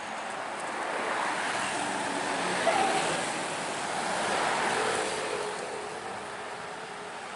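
Road traffic passing close by: a coach bus goes past, followed by motorcycles, the noise swelling over a few seconds and then easing off.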